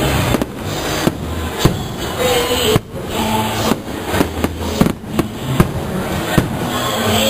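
Aerial firework shells bursting overhead: a dozen or so sharp bangs at irregular intervals, over a continuous rumble of the display.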